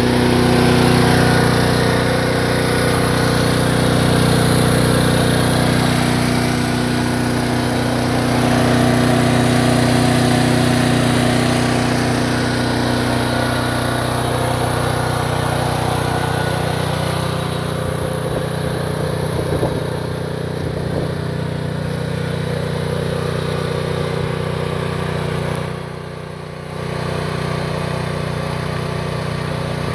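Small engine of a 1.2-ton AGT H-12 mini excavator running steadily, its tone shifting slightly past the middle and dipping briefly near the end.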